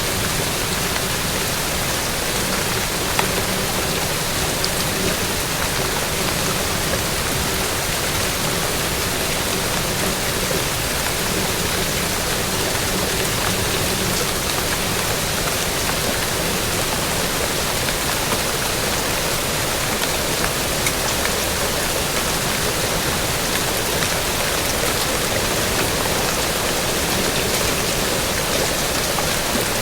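Steady rain falling, a dense even hiss with a few single drop ticks standing out.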